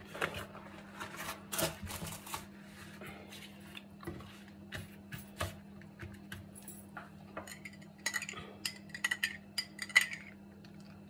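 Thin sheets of yufka pastry rustling and crinkling as they are unfolded and smoothed flat by hand. From about eight seconds in, a metal spoon clinks repeatedly against a drinking glass while stirring oil and water, the loudest clink near the end.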